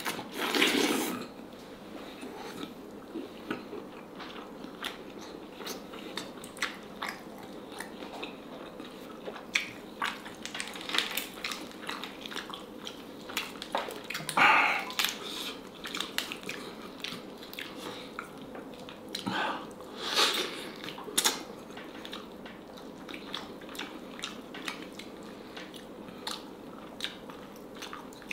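Close-up eating sounds: a person biting into and chewing pieces of H'Mông black chicken, with many small wet clicks and a few louder bites, the loudest about halfway through.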